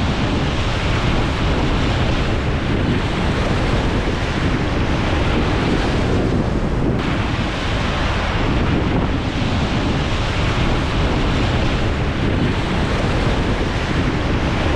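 Strong wind blowing across the microphone, a loud steady rush and rumble.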